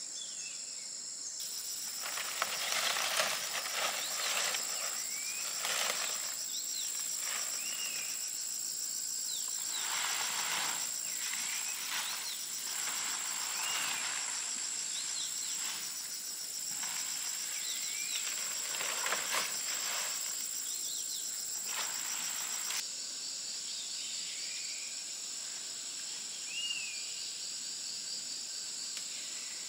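Forest ambience: insects buzzing in a steady high drone and birds giving short chirping calls. Through most of the middle stretch there are repeated short rustling noises.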